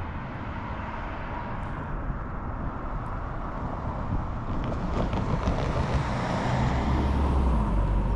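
A car driving past on the road, its tyre and engine noise swelling as it comes close and passes. A low rumble comes up near the end.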